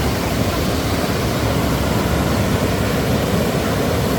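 Waterfall rushing: a steady, loud noise of falling water, even throughout.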